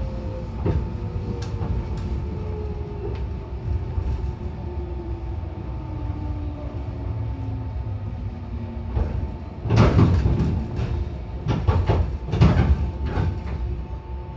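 A 415 series electric train's motor car running and slowing down, heard from inside the car. The traction motor and gear whine falls steadily in pitch over the steady rumble of the wheels. About ten seconds in comes a cluster of loud clattering knocks from the running gear.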